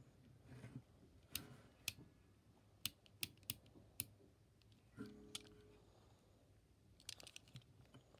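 Faint, scattered sharp clicks, with a quick run of clicks near the end, from a yellow snap-off utility knife's blade slider being ratcheted and the knife handled.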